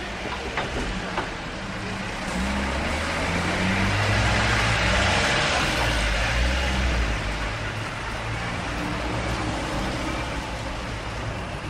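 Busy street traffic: a motor vehicle passes close, its engine rumble and tyre noise swelling to a peak about five seconds in and then easing, over the steady wash of other traffic. Two sharp ticks sound near the start.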